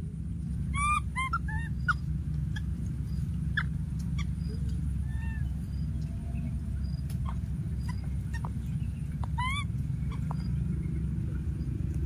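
A baby macaque's high, squeaky calls: a quick run of three or four rising squeals about a second in and another short run near the end, over a steady low rumble.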